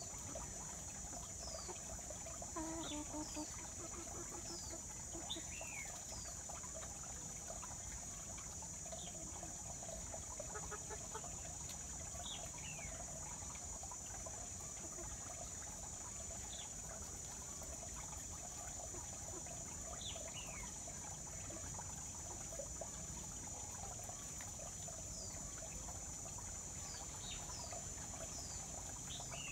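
Free-range chickens foraging, with a hen's low clucking about three seconds in and short falling chirps scattered throughout, over a steady high insect drone.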